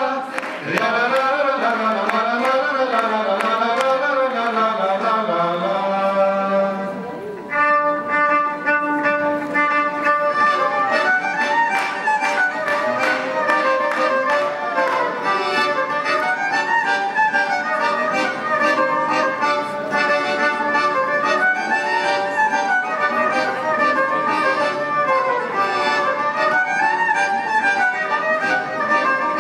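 Live traditional Cypriot folk dance music on violin and lute with a steady beat. The melody winds and ornaments, then about seven seconds in the music dips briefly and a new tune starts.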